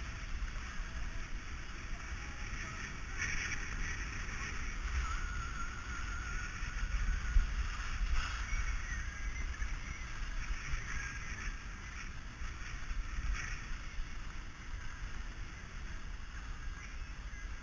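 Wind rumbling on an action camera's microphone during a fast run down a groomed slope, over a steady hiss of edges sliding on packed snow. A few sharper scrapes come on turns, about three seconds in, near the middle and near the end.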